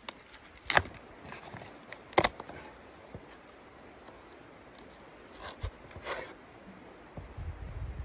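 Cardboard being torn by hand: two sharp rips about a second and a half apart, then a longer, softer tear a few seconds later, with rustling of the sheets between.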